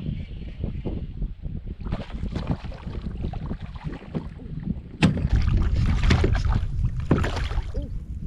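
Wind rumbling on the microphone with knocks and clatter of handling in a kayak, getting louder and busier about five seconds in.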